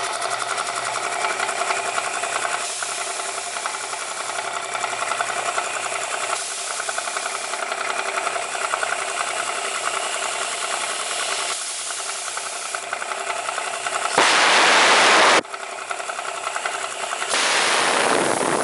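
Old oil-lubricated piston air compressor running with a fast, even chatter. About fourteen seconds in, and again near the end, come two loud hisses of compressed air let out through a small blow nozzle.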